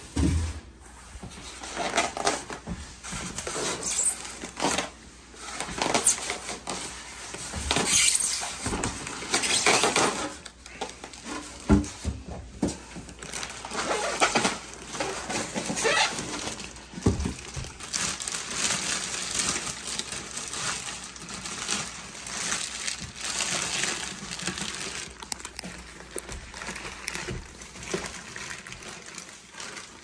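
Packaging being handled during an unboxing: polystyrene foam packing inserts pulled apart and lifted off, and plastic wrapping rustling, in an irregular run of scrapes and rustles with a couple of sharper knocks.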